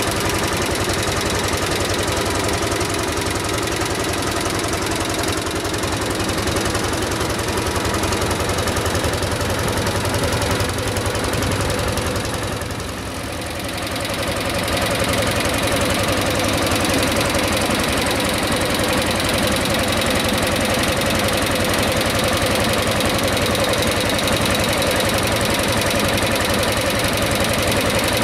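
Single-cylinder two-stroke hot-bulb tractor engine running with an even, rapid beat. The sound drops off briefly about halfway through, then carries on steady.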